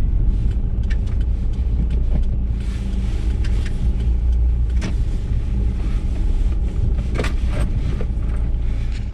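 Car driving, heard from inside the cabin: a steady low engine and road rumble with a few short clicks and knocks, cutting off suddenly near the end.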